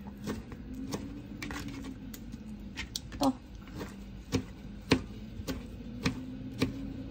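Kitchen knife chopping blanched spinach on a plastic cutting board: sharp knocks of the blade against the board, about two a second and unevenly spaced, over a faint steady low hum.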